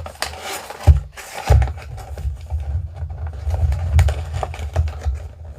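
Handling noise from cardboard packaging: a paper insert sliding back into the action-figure box, with rubbing, scraping and small knocks, and two louder thumps about a second and a second and a half in as the box is handled and set down.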